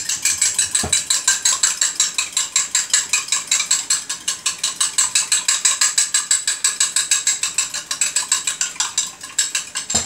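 Two eggs being beaten by hand in a drinking glass, the utensil clinking rapidly against the glass at about six strokes a second. The clinking stops near the end.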